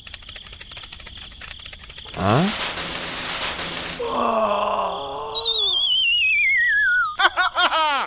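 A string of edited-in cartoon-style sound effects: a rattle of quick clicks, a short rising swoop, a silly groaning voice, then a long falling warbling whistle and a quick run of bouncy chirps near the end.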